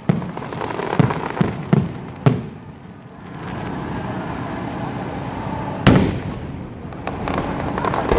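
Aerial fireworks display: a quick run of sharp bangs for the first two and a half seconds, a steady crackling hiss through the middle, then one loud bang about six seconds in.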